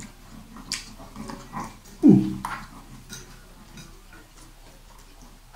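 Two people eating noodles fast: slurping and chewing noises, with small clicks of forks against plates. About two seconds in comes a short grunt that falls in pitch.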